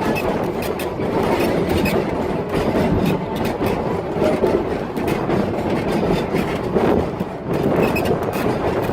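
Railroad passenger car rolling along the track: a steady rumble with a continuous clatter of wheels over the rail joints.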